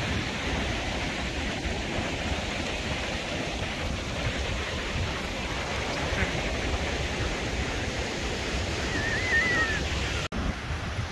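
Steady wash of ocean surf on a beach, with wind rumbling on the microphone. About nine seconds in comes a short, wavering high-pitched call, and just after ten seconds the sound cuts out for a moment.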